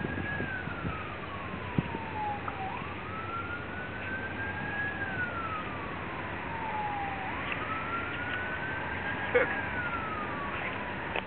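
Siren wailing: its pitch rises quickly, then falls slowly, repeating about every four and a half seconds over a steady background hiss. A sharp click stands out late on.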